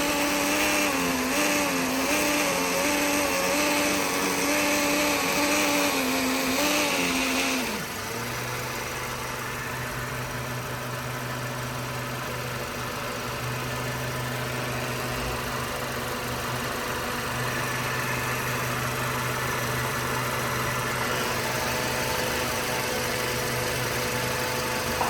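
Mercedes C250's Bosch auxiliary electric water pump whining with an uneven, wavering pitch, the noise the owner traces to this pump. About eight seconds in the whine drops away and stops suddenly, leaving a steady lower hum.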